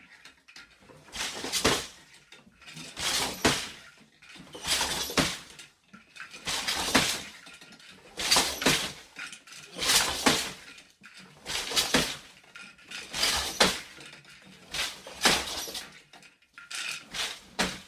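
An 8-harness floor loom being woven on: a rhythmic clatter of two quick knocks about every 1.7 seconds as the shuttle is thrown, the beater pushes the weft into place and the treadles shift the harnesses.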